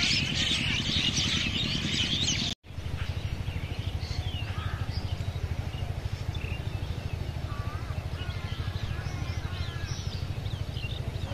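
Many small birds chirping and twittering over a steady low rumble. The sound drops out for a moment about two and a half seconds in; after that the bird calls are fainter and sparser over the same rumble.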